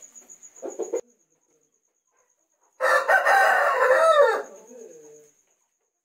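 A Kili Mookku (parrot-beak) long-tailed rooster crowing once, a loud call of about two seconds starting near the middle and trailing off with a falling tail. Before it comes a brief low sound, and crickets chirp steadily in the background.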